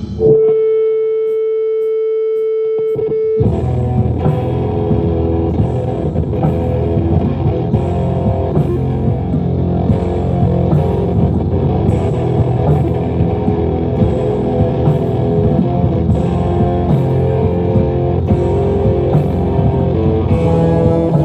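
Live rock band with electric guitars: a single held note rings for about three seconds, then the full band comes in with distorted guitars, bass and drums, playing on steadily.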